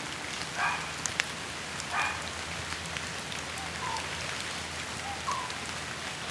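Steady rain falling, with scattered sharp ticks of single drops.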